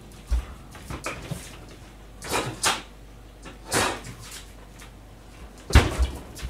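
Kitchen handling noises: a few short rustles and scrapes, then a cupboard-type door shutting with a sharp thump near the end.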